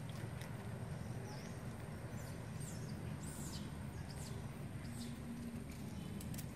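Outdoor ambience: a steady low background rumble, with a few short, high chirping calls, some falling in pitch, about two to five seconds in.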